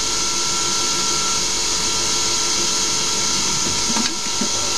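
Hercus PC200 CNC lathe spindle running at 3000 rpm while a 1.5 mm wide parting insert feeds through brass bar: a steady high hiss of cutting over a steady whine. There is a brief click about four seconds in.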